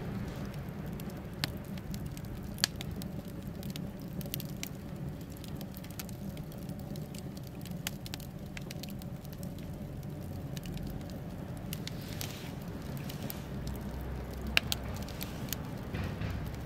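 Wood fire crackling in the firebox of a cast refractory-concrete batchbox rocket burner, with scattered sharp pops over a steady low rumble. A few pops stand out, one near the start and one near the end.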